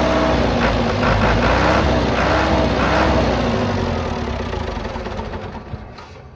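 Diesel tractor engine running out of its vertical exhaust stack, its pitch rising and falling repeatedly. It grows quieter over the last two seconds.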